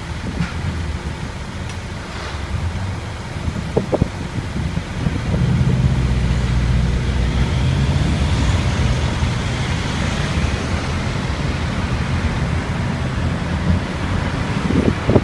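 Car cabin road noise from inside a moving taxi: a steady low engine and tyre rumble with city traffic around it, growing louder about five seconds in. A few short clicks stand out.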